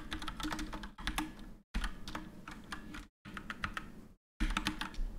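Typing on a computer keyboard: quick clusters of key clicks broken by a few short pauses.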